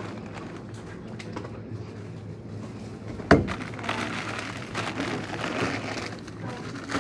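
A single sharp knock a little under halfway in, then about two seconds of crinkling and rustling from a plastic produce bag being handled, over a steady low hum.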